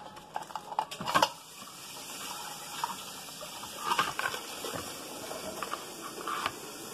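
Stainless mesh rotisserie basket of an Instant Vortex Plus air fryer knocking and scraping against a plate as a whole roast chicken is worked out of it. There are a few sharp clicks about a second in, and more near the middle and near the end.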